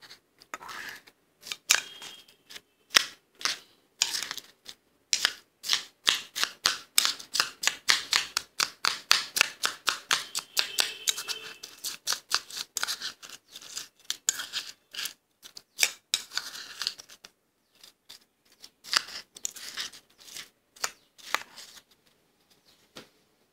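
Soft freezer frost crunching in quick, crisp, rhythmic crunches, a few a second. They come densest through the middle and grow sparser near the end.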